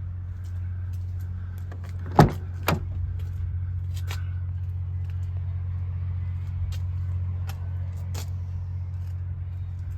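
A vehicle engine idling with a steady low hum, with two sharp knocks a half second apart about two seconds in and scattered light clicks.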